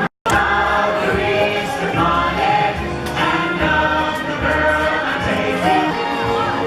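Music with a group of voices singing over a steady beat, after a split-second dropout right at the start.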